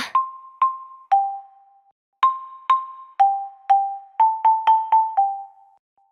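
Short burst of noise, then a simple cartoon melody of single struck notes on a mallet instrument like a glockenspiel or xylophone, about two notes a second, with a quicker run of notes a little after the middle.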